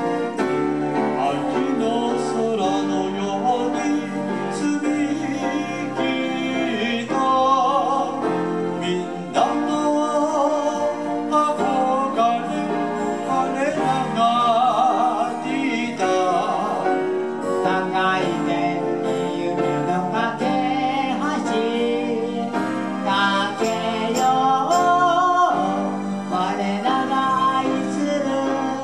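A live band playing a song through a PA: electronic keyboards under an amplified sung melody with vibrato.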